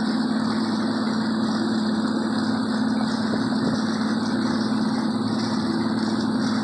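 Evinrude 135 outboard motor running steadily under way, a constant drone with no change in pitch.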